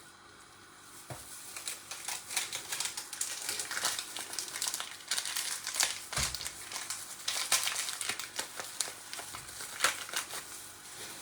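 Crinkling and rustling of plastic packaging with many small clicks, as an ingredient is handled and measured out, with a low thump about six seconds in.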